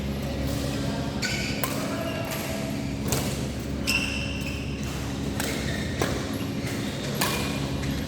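Badminton rackets striking a shuttlecock in a rally: a string of sharp smacks roughly a second apart, ringing in a large hall over a steady low hum.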